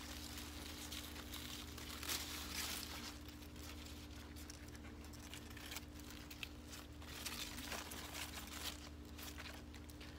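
Mustard green leaves rustling and crinkling as a hand handles and cuts the leafy stalks, in irregular bursts over a steady low hum.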